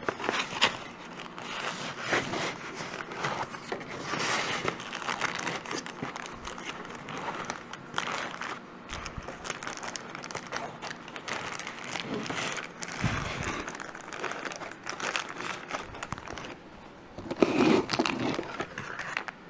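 Plastic zip-lock parts bags crinkling and rustling as they are handled and lifted out of a cardboard box, with irregular crackles and some cardboard scraping.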